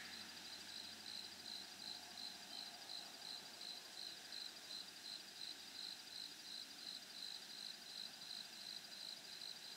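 An insect chirping in a steady rhythm, about three high-pitched pulses a second, over faint outdoor background noise.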